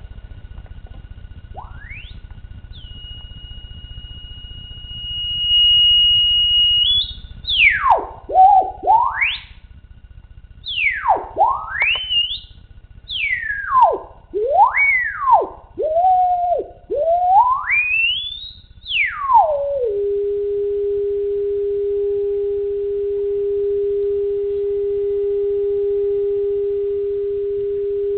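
Electro-Voice DH1A 2-inch compression horn driver playing a pure test tone. First a rising glide, then a steady high tone that turns loud partway through, then a run of quick sweeps up and down between low and high pitch, and finally a steady low tone. The driver is under test for a suspected bad voice coil.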